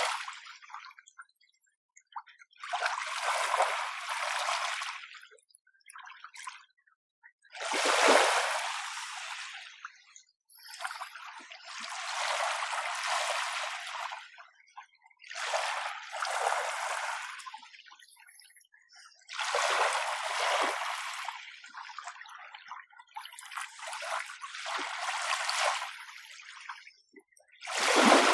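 Small, gentle waves washing in one after another, about every three to four seconds. Each is a light hiss that swells and fades away, with near-quiet gaps between them.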